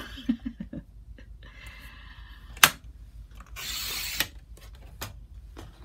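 Paper trimmer cutting paper strips: a faint rasping slide, a sharp click about two and a half seconds in, then a short hissing slice through the paper a second later, with a few lighter clicks.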